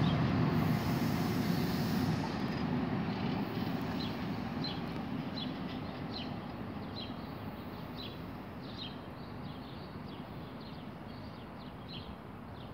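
Bi-level NJ Transit commuter train, pushed by an ALP-46 electric locomotive at the rear, pulling away from the station. Its low rumble fades steadily as it recedes into the distance.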